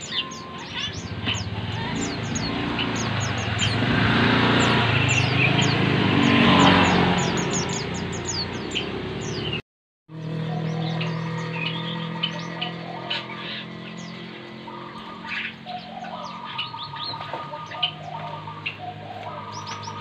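Many small caged birds chirping together in short, high, downward-sweeping calls. About four seconds in, traffic noise swells and then fades. Near the middle the sound cuts out for a moment, and then the chirping carries on over steady low tones.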